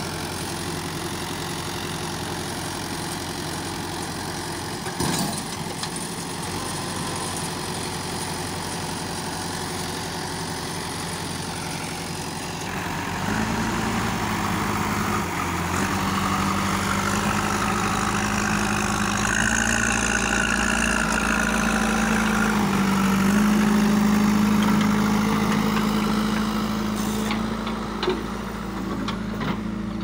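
Diesel engines of a tractor and a backhoe loader running. About halfway through, an engine is revved up hard and held under heavy load, its pitch stepping higher and the sound growing louder, as the overloaded tractor hauls a sand-filled trolley with its front wheels lifting off the ground.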